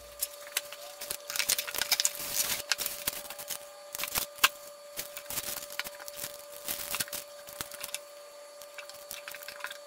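Irregular rustles, clicks and taps of a toy RC helicopter's box and packaging being opened and its parts handled, with a faint steady hum underneath.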